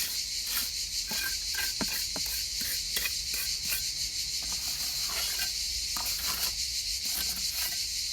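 Trowel scraping and tapping on wet concrete as the top of a gate-post pillar is smoothed and levelled in its wooden shuttering: short irregular strokes over a steady high hiss.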